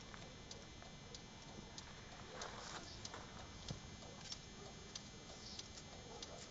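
Scania truck's turn-signal flasher ticking in a steady rhythm, about two faint clicks a second, as the newly fitted indicator strips blink.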